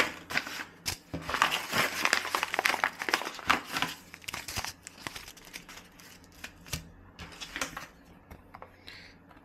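Kraft paper seed bags crinkling and rustling as they are handled and opened by hand and the seed packets are taken out. Dense crinkling for the first few seconds, then sparser, quieter rustles.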